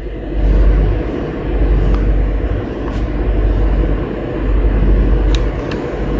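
Steady low rumble of background noise that swells and eases every couple of seconds, with a few faint clicks.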